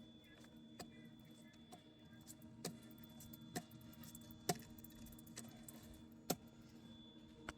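Light metallic clicks from the motorcycle's drive chain being handled as excess chain lube is wiped off: about seven sharp clicks, roughly one a second, over a faint steady hum.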